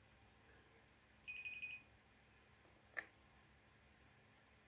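Multimeter continuity beeper giving a quick run of about five short, high beeps as the test probes touch a fuse on the T-Con board, then one sharp click about three seconds in.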